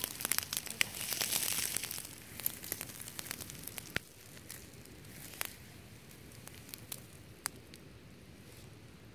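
Close rustling and crackling from handling, a towel being shifted over a wooden box amid dry plant litter. It is dense for the first two seconds, then thins to a few scattered light clicks.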